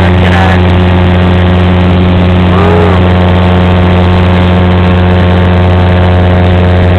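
Propeller plane's engine and propeller, heard from inside the cabin: a loud, steady drone with a strong low hum.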